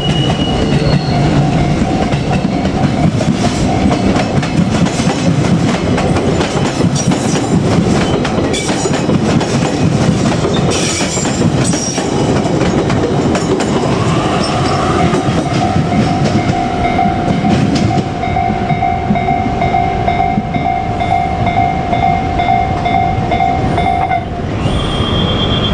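Electric trains passing close by: loud, continuous wheel and rail noise with clickety-clack over the joints. A steady whine comes in about halfway and stops shortly before the end.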